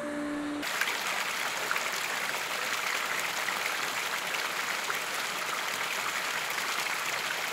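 Steady rush of flowing water, an even hiss with no separate splashes. It begins about half a second in, as a short musical note ends.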